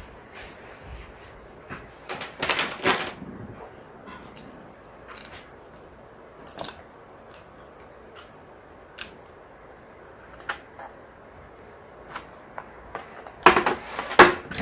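Scattered light clicks and knocks of small objects being handled and set down on a table, with two longer, louder noises, one about two seconds in and one near the end.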